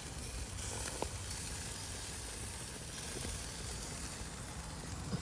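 Buttered corn sizzling on a barbecue grill: a steady sizzle that gets a little brighter about half a second in.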